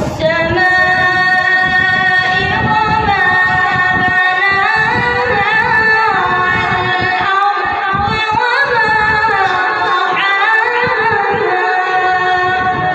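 A boy qari reciting the Quran in the melodic, chanted style, his high voice holding one long unbroken phrase that winds up and down in pitch with ornamented turns.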